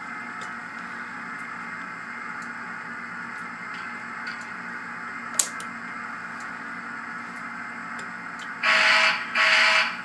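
SoundTraxx Tsunami steam sound decoder in a Kato N scale Union Pacific FEF 4-8-4, heard through its small oval speaker. The standing locomotive gives a steady low hiss, with a single sharp click about halfway. Near the end come two short, loud chime-whistle blasts.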